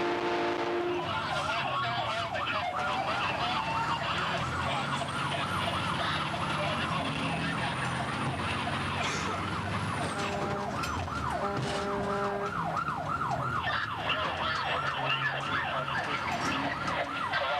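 Fire rescue truck's electronic siren on a fast yelp, its pitch swinging up and down several times a second. A multi-note train horn cuts off about a second in, and two short blasts of the horn sound over the siren about ten seconds in, the second longer than the first.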